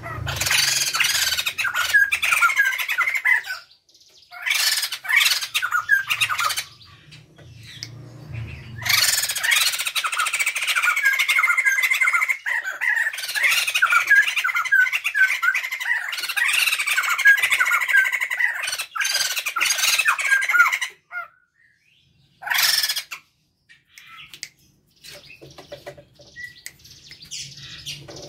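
A pair of white-crested laughingthrushes calling together in loud bursts of rapid, repeated notes. There are two bursts of a few seconds each near the start, then a long one of about twelve seconds, then a short outburst and fainter calls near the end.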